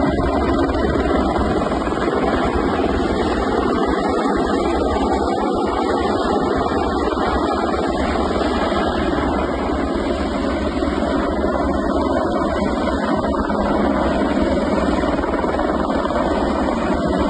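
Helicopter running steadily, a loud, even engine and rotor noise.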